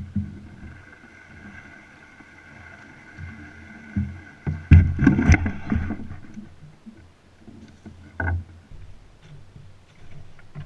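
Knocks and thumps of gear or a paddle against a canoe hull: one sharp knock at the start, a loud cluster about five seconds in and a single thump near the end.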